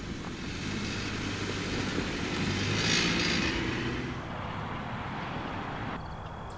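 A Subaru car driving by on a gravel track, its engine and tyres growing louder to a peak about three seconds in and then fading away.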